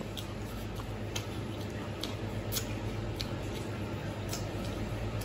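Chewing crispy fried chicken leg: short, crisp crunches at an uneven pace, about one a second, over a steady low hum.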